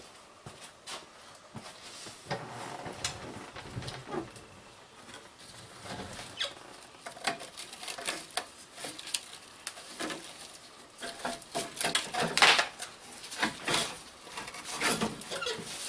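Hand work on metal transmission cooler lines and their fittings: irregular clicks, knocks and scrapes, with a busier, louder cluster about three quarters of the way through.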